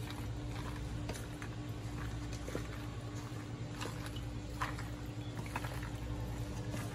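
Pasta salad being stirred and tossed in a bowl: soft wet squishing with scattered light clicks, over a steady low hum.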